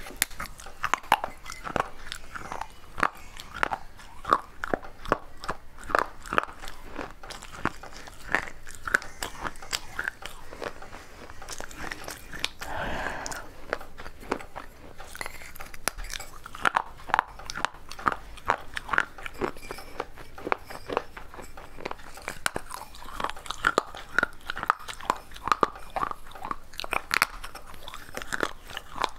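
Close-miked crunching and chewing of pieces bitten off a small unglazed fired-clay pot: a dense, irregular run of sharp cracks and gritty crunches.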